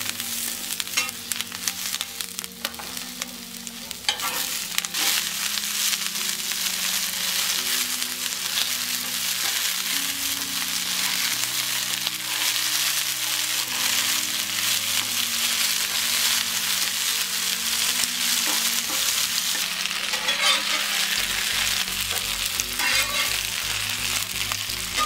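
Green bell pepper pieces sizzling as they fry in oil on a cast-iron pan, with a metal spatula scraping and stirring them. The sizzle grows louder and steady about four seconds in.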